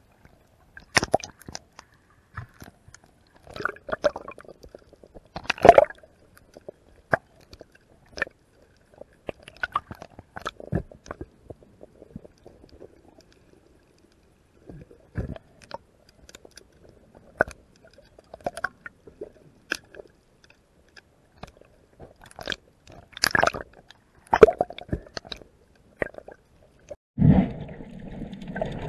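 Underwater camera sound while freediving: scattered sharp clicks and knocks of water and handling against the submerged camera, with near-empty stretches between them. Near the end a steadier, muffled rush of water begins.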